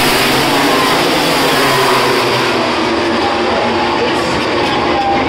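MotoGP racing motorcycles passing at full speed on the straight, their engine note sliding down in pitch as they go by. The high-pitched part of the sound fades after about two and a half seconds.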